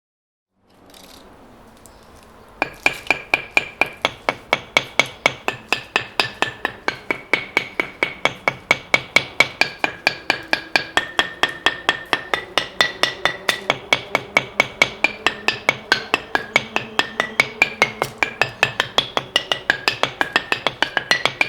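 Improvised percussion on household objects: a steady stream of sharp, clicking strikes, about four or five a second, each leaving a short ringing note whose pitch shifts as it goes, like a small tuned percussion line. It starts about two and a half seconds in, after a faint hiss.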